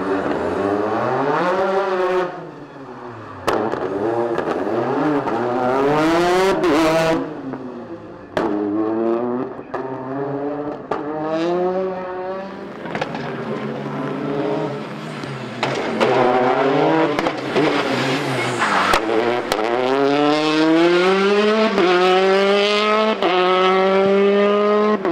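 Citroën DS3 rally car's turbocharged engine driven hard. The revs climb and drop sharply at each gear change and fall away under braking and downshifts. Near the end the pitch rises in steps as it accelerates up through the gears. A few brief sharp cracks come in between.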